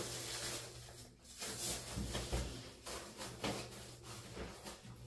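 Faint rustling and soft knocks of things being handled, over a steady low hum.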